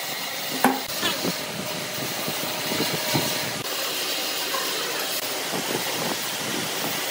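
Wooden boards handled on a workbench: a sharp knock about two-thirds of a second in and lighter knocks just after, over a steady hiss.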